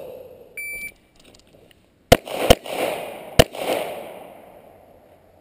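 A shot timer beeps once, then a 9mm competition pistol fires three shots, the first two close together and the third about a second later, each trailing off in a long echo.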